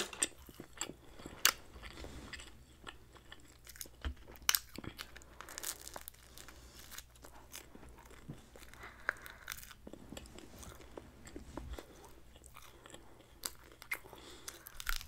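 Close-miked chewing of chicken and pork kabob meat and vegetables: irregular wet mouth clicks and crunches, with sharper snaps about one and a half and four and a half seconds in.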